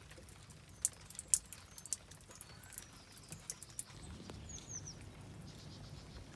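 Rainwater dripping from the end of a downpipe: irregular sharp drips splashing. About four seconds in, this gives way to a steady patter of rain on a wet lane, with a few short bird chirps.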